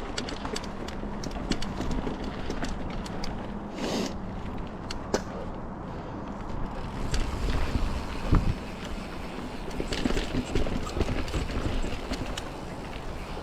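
Mountain bike rolling over rocky, rooty dirt singletrack: tyre noise with frequent sharp clicks and knocks as the wheels hit rocks and roots and the bike rattles, with wind rushing over the microphone.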